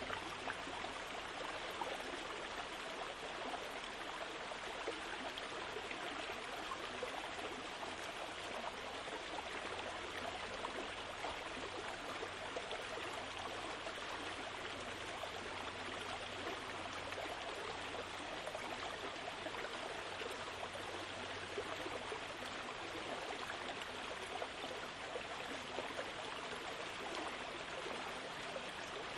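A steady, even rushing noise, like running water, that does not change throughout.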